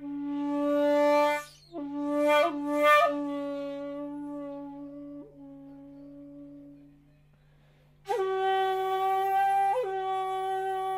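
Shakuhachi playing slow, long-held single notes: a short note, a breath, then a long note with two quick ornamental flicks and a rush of breath that slowly fades away. After a pause of about a second, a higher, louder note enters with a burst of breath and brief flicks of pitch.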